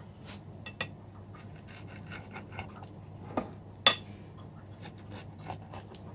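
A metal utensil clicking and scraping against a ceramic plate while a cooked egg pizza is cut into pieces, with one sharp clink a little under four seconds in.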